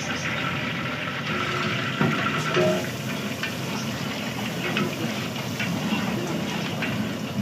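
Large aluminium pot of biryani rice boiling hard, its water bubbling and frothing as a long metal ladle stirs it. The ladle knocks against the pot a couple of times about two seconds in.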